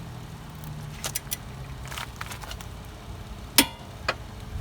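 Half-inch drive click-type torque wrench being pulled on an axle nut, with a few light metallic ticks and then one sharp click about three and a half seconds in as it reaches its 185 ft-lb setting.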